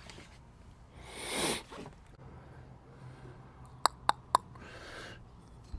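A loud breath out, then three short ringing metallic clinks in quick succession as the basket's mounting hardware is handled.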